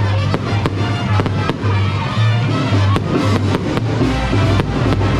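Fireworks going off in quick succession, a few sharp pops and bangs a second, over loud music with a pulsing bass beat.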